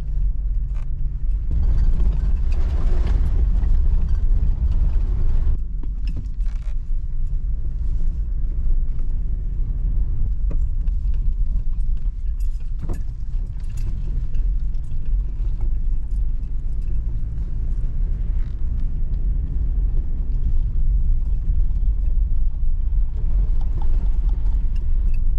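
Toyota 4Runner driving on a rough road, heard from inside the cabin: a steady low rumble of engine and tyres with frequent creaks and rattling clicks from the body and the loaded interior.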